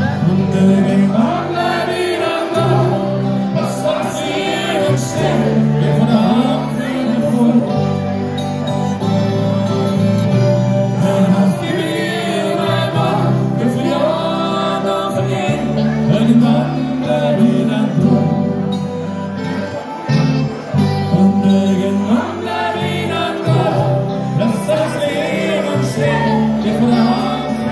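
Live party band playing through a PA: guitars, keyboard and a stepping bass line, with singing over the top.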